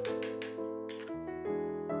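Gentle piano music, with a few short strokes of a mandoline slicer cutting through a red onion in the first second.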